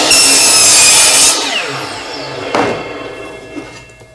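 DeWalt 10-inch miter saw cutting across a wide laminate flooring plank at full speed. After about a second and a half the cut ends and the motor spins down with a falling whine, with a knock partway through the wind-down.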